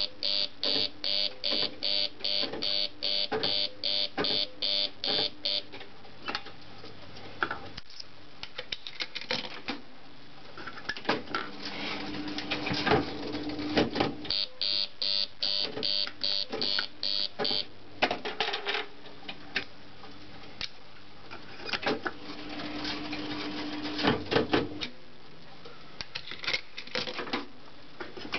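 Carfield Starship II electro-mechanical fruit machine running through its games: relays and reel mechanisms clicking, and a motor hum while the reels spin. Twice, once at the start for about five seconds and again about halfway for about three seconds, a quick regular pulsing comes from the machine at about three pulses a second.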